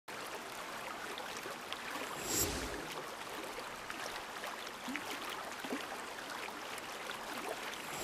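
River water lapping and trickling among bank stones, a steady wash with faint small splashes, and a louder whoosh about two and a half seconds in.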